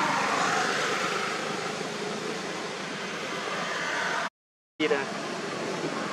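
Steady outdoor hiss of wind and water with no clear call standing out, cut by a half-second dropout to silence a little after four seconds in.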